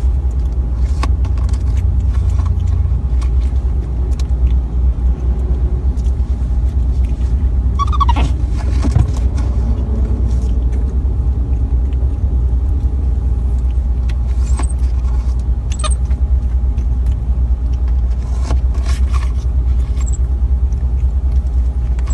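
A steady, loud low rumble, with a faint steady tone above it and a few small clicks. There is a short falling squeak about eight seconds in.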